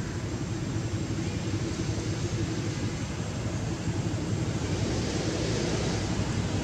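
Steady outdoor background noise: a low rumble with a fainter hiss, no distinct calls or knocks.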